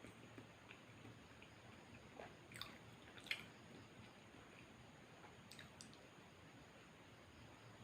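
Faint chewing and mouth sounds of a person eating a McDonald's burger, with a few soft clicks, the sharpest about three seconds in.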